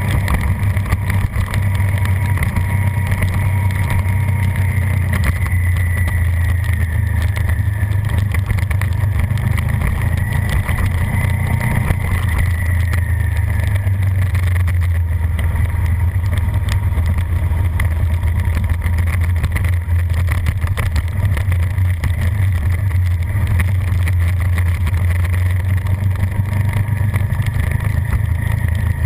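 Onboard sound of a Suzuki SV650's V-twin engine running at speed under a constant rush of wind. It is a steady, loud drone whose pitch drifts slightly up and down.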